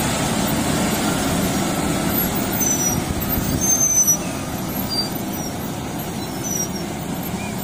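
Hino Ranger concrete mixer truck's diesel engine running steadily as the truck pulls away slowly, getting a little quieter about four seconds in.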